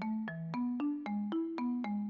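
Background music: a light tune of quick, evenly spaced notes, about four a second, over a low bass line.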